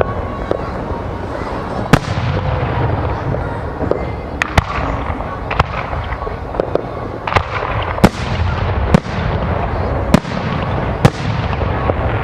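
Aerial fireworks display: a string of sharp bangs, about one a second, over a continuous low rumble and crackle of bursting shells.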